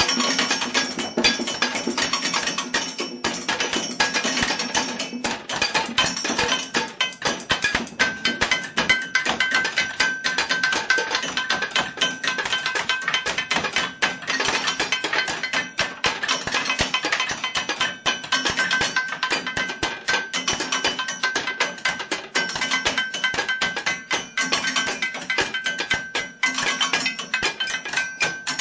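Improvised drumming on kitchen objects: fast, dense strikes, with some struck items ringing on at steady pitches. A high ringing tone stands out from about eight seconds in.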